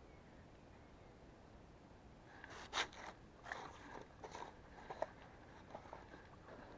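Faint, steady outdoor quiet for about two seconds, then a run of irregular clicks, crunches and scrapes, as of fishing gear or the camera being handled close to the microphone. The loudest is a sharp crunch about three seconds in.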